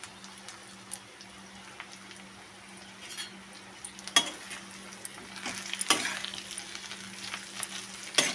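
Sliced bitter gourd (karela) frying in oil with onions in a kadhai: a steady sizzle while a spatula stirs the pieces, with a few sharp clinks of the spatula against the pan, the loudest about four and six seconds in.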